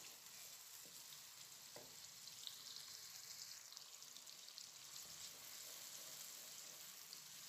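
Sliced onions frying in oil in a kadai: a faint, steady sizzle with small crackles as they turn light pink. A wooden spoon stirs them now and then.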